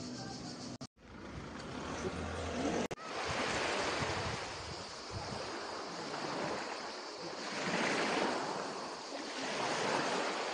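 Sea surf washing up on a sandy beach: a steady rush of water that swells and fades a few times. Two brief dropouts break it in the first three seconds.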